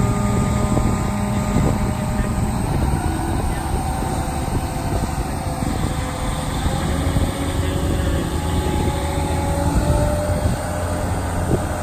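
Engine of a Mammoet self-propelled trailer's power unit running steadily as the long empty multi-axle trailer rolls slowly along the street. Wind buffets the phone microphone.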